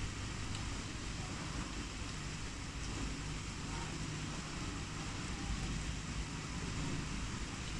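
Heavy rain falling steadily, an even hiss with a low rumble underneath.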